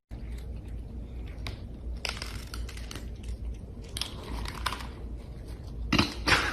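Irregular crunching and crackling, a few crunches a second, loudest about six seconds in, over a low steady hum.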